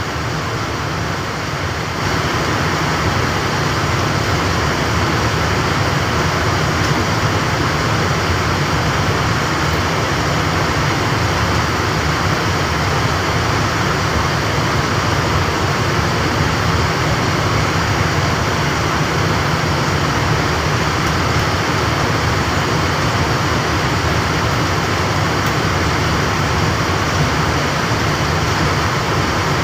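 Refrigeration machinery running steadily: the air-conditioning unit's compressor or the service vacuum pump. It gets a little louder about two seconds in.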